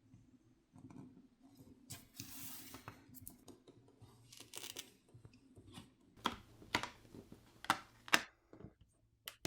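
Pry picks working a phone's glued backplate loose: short scraping and tearing sounds of adhesive separating, with a series of sharp plastic clicks in the second half.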